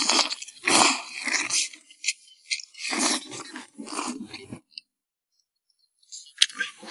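Close-miked eating sounds: a man chewing a mouthful of chili-topped sea snail in loud, noisy bursts. They cut off about four and a half seconds in, and near the end chopsticks click against the clay pot as the rice is stirred.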